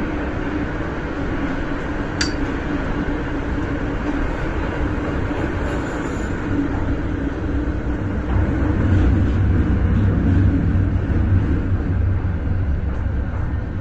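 MTR M-train electric multiple unit running through a tunnel, heard from inside the passenger car: a steady rumble of wheels on rail under a constant hum. The low rumble grows louder about eight seconds in. There is a single sharp click about two seconds in.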